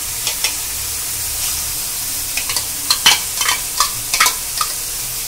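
Onion-tomato masala sizzling in oil in a kadai, a steady hiss. From about two and a half seconds in, a spoon clicks and scrapes against the bowl and pan as thick yogurt is spooned into the masala.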